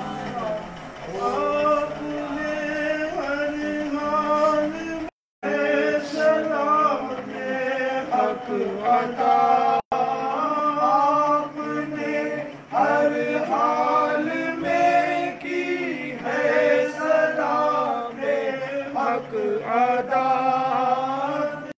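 Male voices chanting a salaam, an Urdu devotional recitation honouring Imam Hussain, sung without instruments. The sound drops out for a moment about five seconds in.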